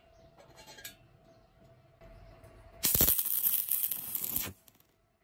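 Electric welding arc crackling for about a second and a half as a single tack weld joins a thin steel plate to a square steel tube, starting and cutting off abruptly.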